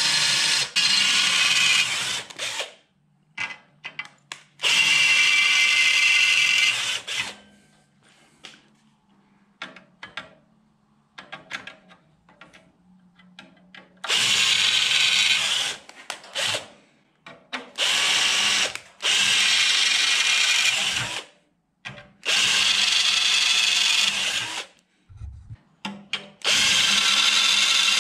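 Electric drill with a 3/16-inch bit boring through sheet steel, enlarging 1/8-inch pilot holes into plug-weld holes. It runs in about six bursts of two to three seconds each, with short pauses between holes.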